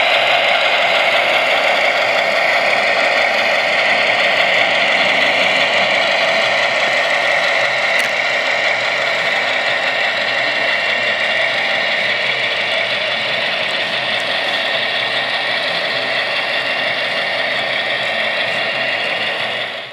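HO-scale EMD F7A model diesel locomotive running with its onboard sound playing a steady diesel engine sound, mixed with the rattle of its wheels on the track. It eases slightly as the locomotive moves away and fades out at the very end.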